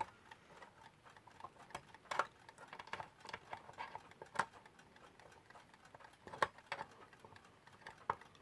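Faint ticking of a Westclox Lark alarm clock's running movement, with a few sharper, irregular clicks of metal parts as the movement is worked into its case.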